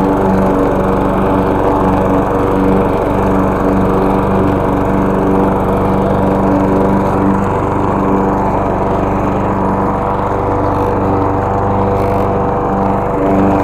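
Walk-behind push mower's small single-cylinder gasoline engine running steadily while cutting grass, its tone changing slightly about seven seconds in.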